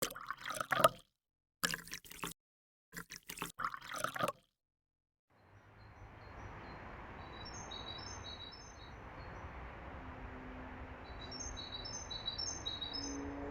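Three short, loud bursts of sound in the first four seconds. From about five seconds in, a steady background hiss rises, and over it a small songbird sings two phrases of quick, high, repeated notes, the second near the end.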